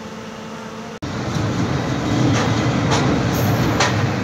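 Passenger train running at speed: a heavy rumble with a few sharp wheel clacks over rail joints, heard from a carriage. It jumps much louder about a second in.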